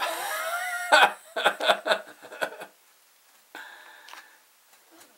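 A man laughing: a drawn-out first laugh, then a quick run of short laughs about a second in, with a fainter sound near the end.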